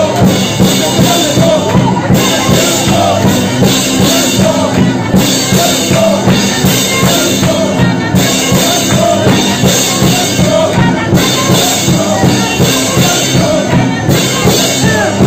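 Loud worship music with a drum kit keeping a steady beat.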